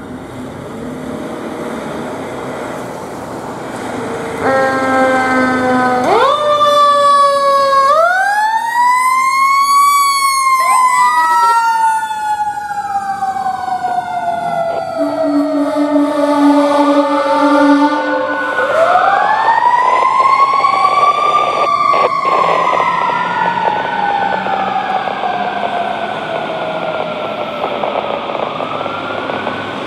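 Fire engine and rescue truck pulling out on a call. A horn blast comes first, then a siren winds up quickly and falls slowly in a long wail, twice. A second siren wails in shorter rises and falls over it, and a second low horn blast sounds midway.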